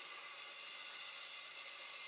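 Faint, steady whirring hiss of a model railway shunter locomotive's small electric motor and wheels running on the track.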